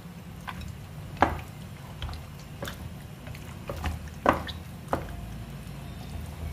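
Chopsticks turning pork chops in a wet marinade in a bowl: irregular sharp clicks of the chopsticks against the bowl, with soft squishing of the meat, over a low steady hum.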